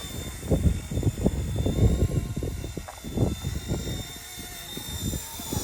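RC Era C189 MD500 remote-control helicopter in flight, its electric motor and rotor giving a steady high whine. Gusts of wind buffet the microphone in uneven low rumbles, loudest in the first half.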